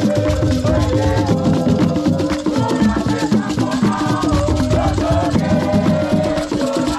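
Ghanaian drum ensemble playing a fast, dense beat, with a rattling shaker sound and a wavering melody over the drums.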